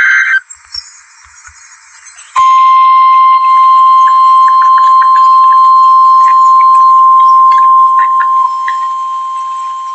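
The end of an EAS SAME header data burst (a harsh digital warble), about two seconds of radio hiss, then the NOAA Weather Radio warning alarm starting about two and a half seconds in: one steady high tone just above 1 kHz, heard over a hissy radio feed with light static crackles.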